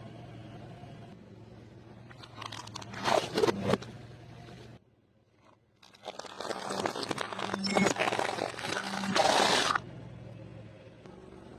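Close-miked eating: crunching bites into crispy fried food, in two stretches of loud, crackly chewing with a brief silent break between them.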